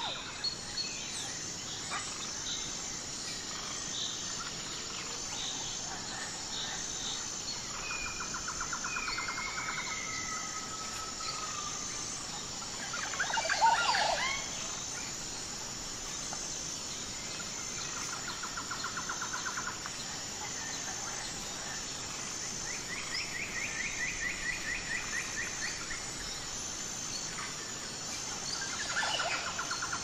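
Forest ambience of several songbirds calling: rapid trills and short whistled glides, over a high chirp repeated at an even pace throughout. One louder cluster of calls, sweeping up and down, comes about halfway through.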